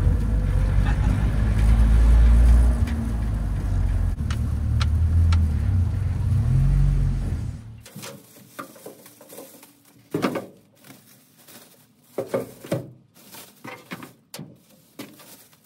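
Pickup truck driving, a loud low rumble from the bed with a few sharp knocks, cutting off about eight seconds in. Then plastic grocery bags rustling in short bursts as they are handled and lifted off a pole.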